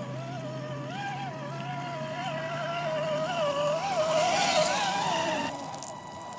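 Axial SCX10 Deadbolt RC crawler's brushed electric motor whining, its pitch rising and falling with the throttle, with a rush of splashing noise building in the second half before the sound cuts off suddenly near the end.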